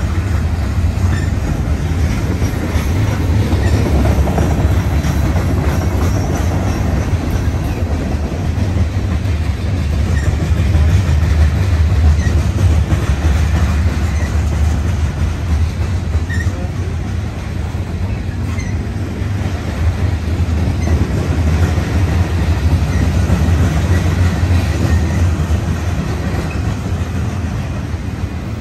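Freight train cars rolling past, mostly covered hoppers and autoracks: a steady, loud rumble of steel wheels on the rails.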